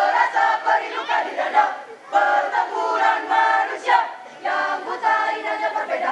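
A group of young performers chanting and singing in unison, with short shouted phrases and brief breaks about two and four seconds in.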